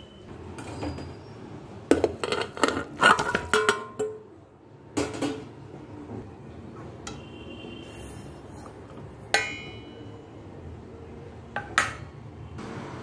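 Metal kitchen utensils clinking and knocking: spoons and steel dishes handled over a metal pot, with a quick flurry of clinks a couple of seconds in, then single knocks later and two close together near the end.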